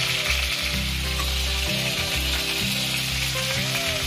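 Chicken drumsticks frying in hot oil in a kadai, a steady sizzling hiss.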